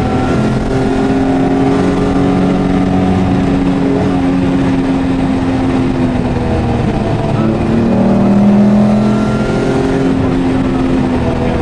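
Race- and rally-prepared Jaguar XJ6's straight-six engine pulling hard at speed, heard from inside the cabin. It holds a fairly steady pitch, then revs up and gets louder about eight seconds in before easing back.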